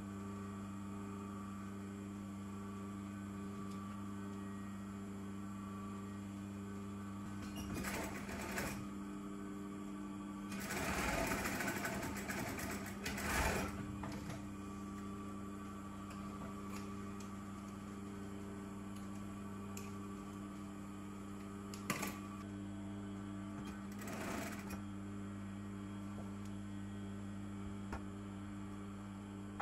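Industrial sewing machine: a steady motor hum throughout, with a few short runs of stitching through satin, the longest lasting a few seconds about ten seconds in. A sharp click about 22 seconds in.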